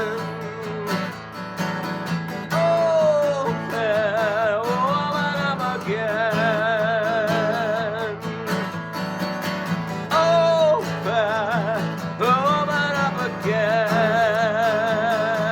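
Acoustic guitar strumming under a melody of long held notes that waver with vibrato and slide from one pitch to the next.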